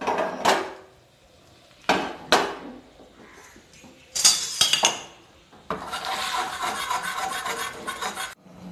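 A metal spoon clinking and scraping in a small steel tadka pan of ghee and ground garam masala, in a few short clatters. From about six seconds in, a steady hiss of mutton curry bubbling under a glass lid.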